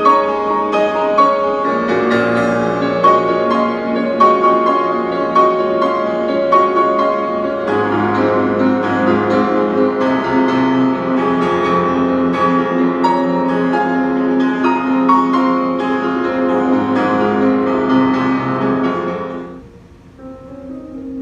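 Piano music: a dense run of quick notes over held lower notes. About nineteen seconds in it drops away suddenly to a much quieter passage.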